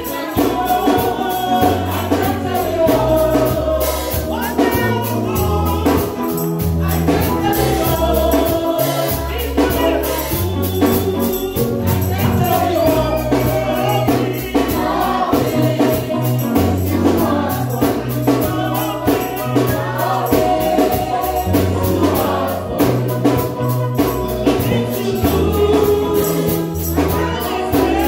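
Live gospel praise music: a group of voices singing together over a stepping bass line, with a steady beat of drums and tambourine.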